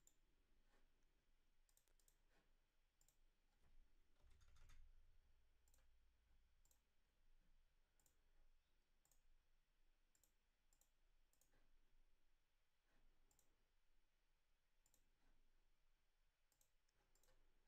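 Near silence, broken by faint, scattered computer mouse clicks, with a faint low thump about four seconds in.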